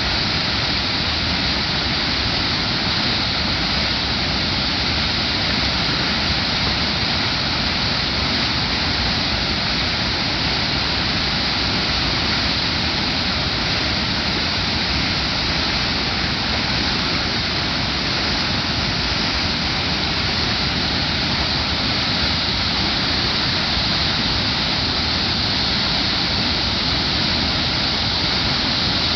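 Waterfall pouring steadily over large rocks, a loud, even rush of falling water that holds constant without a break.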